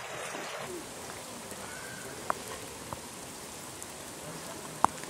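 Steady rain falling on a flooded street's standing water, with a few sharp clicks over it: one about two seconds in and the loudest just before the end.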